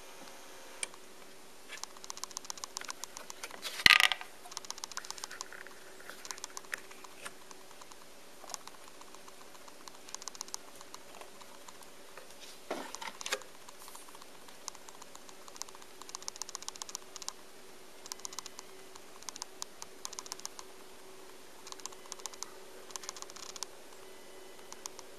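Handling noise around a turntable: bursts of rapid light clicking, a sharp knock about four seconds in, and a softer thump around thirteen seconds as a record is set on the platter. A faint steady hum lies underneath. No record is playing.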